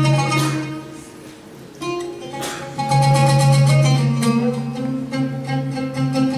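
Plucked string instrument music: quick runs of picked notes over a held low note, dropping quieter for about a second before picking up again.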